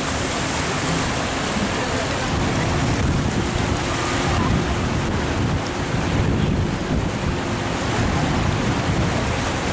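Wind buffeting the microphone over the steady rush of river water churned up by a bateau-mouche tour boat, with a faint low engine hum underneath.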